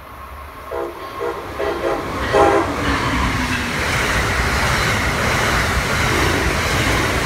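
Amtrak passenger train sounding its horn in several short blasts as it nears, then passing at speed through the station with a loud, steady rush of wheels and cars.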